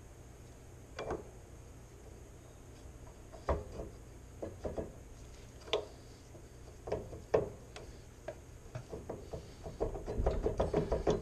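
Metal knocks and clunks as a mower wheel's hub is worked onto a keyed axle shaft, a few separate knocks at first, then a fast rattling run of knocks near the end as it slides into place.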